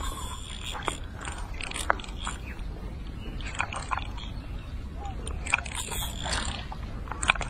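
Fishing reel and tackle handling: irregular mechanical clicks, ticks and scrapes as the line is worked, over a steady low rumble.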